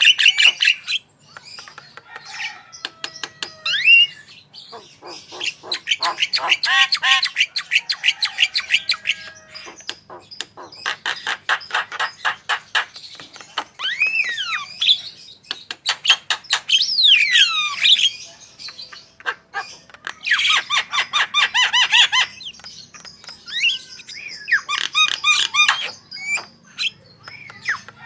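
Javan myna singing a busy song full of mimicked phrases. Bouts of rapid rattling, rasping notes alternate with sliding whistles that rise and fall, with short pauses between phrases.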